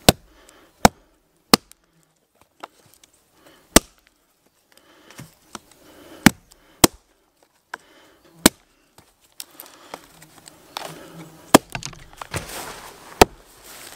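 Small hatchet chopping into a thin stick on a rotten log: about fifteen sharp, separate chops at an uneven pace with short pauses between them.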